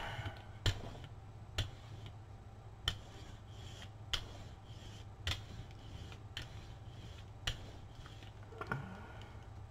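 Acrylic paint being worked over a gel printing plate: a sharp click about once a second over a low steady hum.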